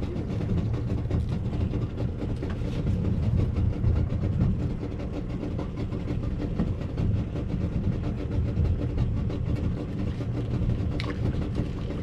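A boat engine idling: a steady low rumble that does not change.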